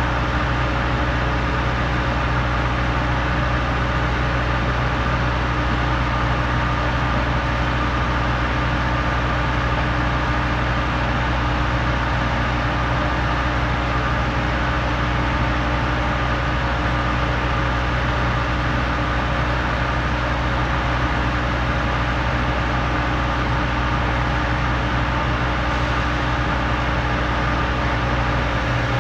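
Heavy engine machinery running steadily while concrete is pumped: a Putzmeister trailer concrete pump with a ready-mix truck's chute feeding its hopper. It makes a constant, even drone with no change in pitch.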